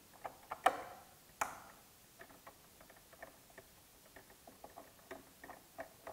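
2.5 mm hex driver turning out a small screw from the plastic panel of an electric unicycle: a run of faint, irregular clicks and ticks, with two louder clicks in the first second and a half.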